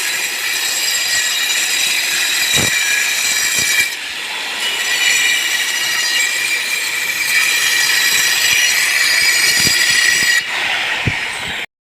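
Angle grinder running under load, a steady high-pitched metallic whine over a grinding noise. It eases off briefly about four seconds in and again near the end, then stops abruptly.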